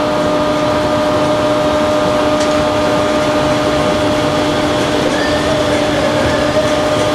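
A machine running steadily: a constant-pitched hum over an even rushing noise.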